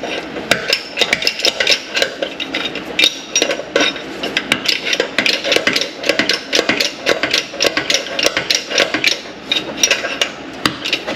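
Rapid, irregular metallic clicking and tapping of hand tools working on metal, several clicks a second.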